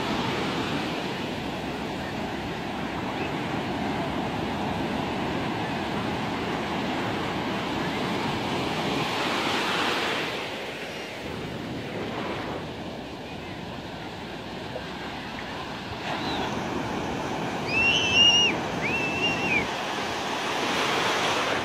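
Surf washing and breaking in the shallows with wind on the microphone, swelling as waves break about halfway through and again near the end. Two short high-pitched calls stand out a few seconds before the end.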